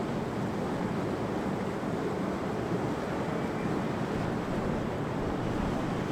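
Strong wind blowing on the microphone, a steady rushing noise.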